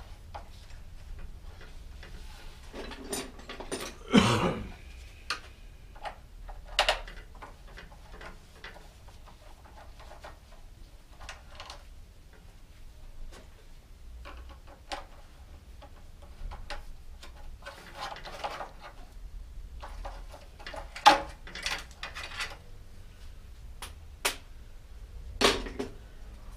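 Scattered metallic clicks, clinks and knocks of hand tools and bicycle parts being handled during work on a bicycle's rear wheel. The loudest knocks come about 4 seconds in and again around 21 seconds.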